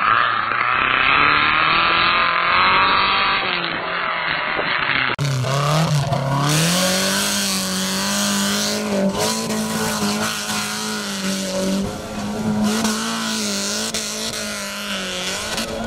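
Off-road trophy buggy's engine running hard under load as the buggy churns through deep mud. About five seconds in the engine note climbs, then holds high revs, wavering as the throttle is worked.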